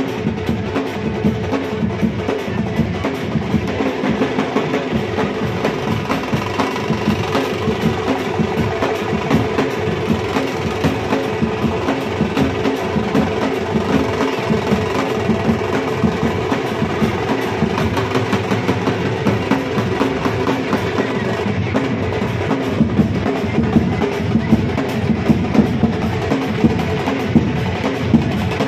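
Procession drumming: many drums beaten fast and continuously in a dense, driving rhythm, with a steady held tone underneath.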